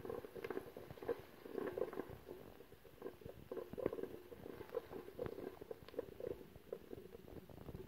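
Onions frying in a stainless steel pot, stirred with a wooden spoon: irregular scraping and light knocks of the spoon against the pot over a soft sizzle.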